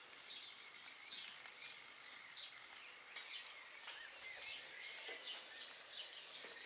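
Faint, repeated short high chirps of a small bird, about two a second, over a faint steady outdoor hiss.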